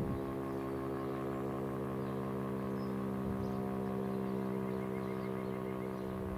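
Federal Signal STH-10A electromechanical siren sounding its steady Alert signal: one unchanging pitch with many overtones, holding level throughout.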